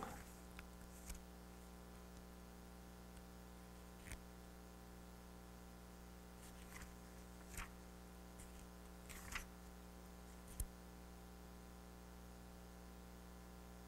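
Near silence with a steady low electrical hum, broken by a few faint short clicks and rustles; the rustle at the very start is a book page being turned.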